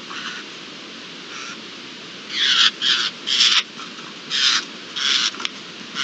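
Eurasian jays giving harsh, rasping screech calls: a couple of faint ones, then about six loud screeches in quick succession from about two seconds in.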